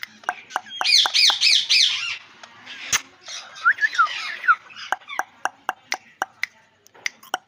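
Parrot squawking: a quick run of rapid high calls, then a few sliding whistled notes, then a series of short sharp clicks at about two to three a second.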